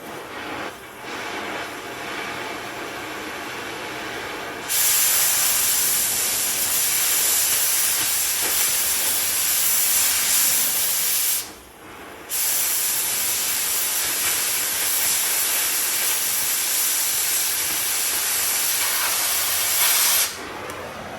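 Cutting torch blowing through steel, cutting off the bottom of a piece on a truck frame: a quieter steady hiss at first, then a loud, even hiss about five seconds in. It stops for about a second just past the middle, resumes, and cuts off near the end.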